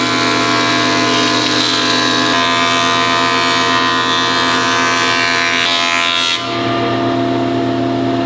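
A woodworking power tool running steadily, its tone shifting about two seconds in and again about six seconds in.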